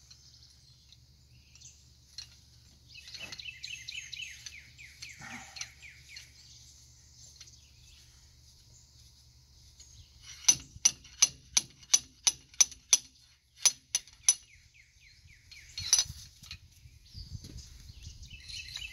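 A quick run of about a dozen sharp metallic clicks, roughly three a second, from hand work on a dump trailer's telescopic hydraulic cylinder ram, with one more click a little later. Birds chirp faintly before the clicks.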